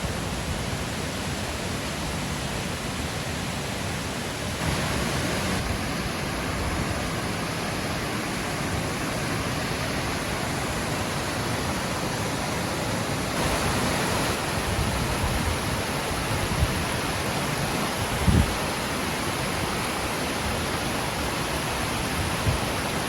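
Steady rushing of a waterfall running full after rain, with a brief low thump about eighteen seconds in.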